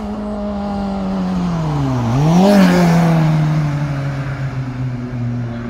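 A car engine driving by: its note sinks, then about two seconds in it dips and is revved sharply back up, loudest just after the rev, then eases off and fades slowly.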